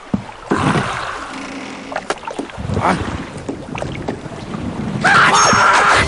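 Cartoon sound effects: a sharp knock, then a rushing, water-like noise with scattered knocks. About five seconds in, a much louder burst of music or squawking starts.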